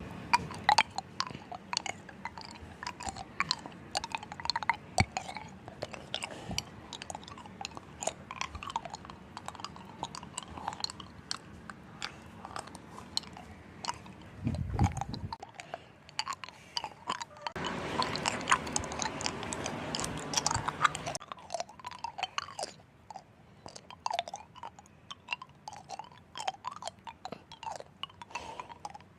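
Ice crunching and cracking: many sharp, irregular crackles and snaps, with a denser stretch of crackling about two-thirds of the way in.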